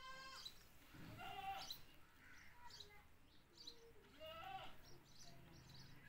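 Indian ringneck parrot giving a few short, nasal calls, the clearest about a second in and again about four seconds in.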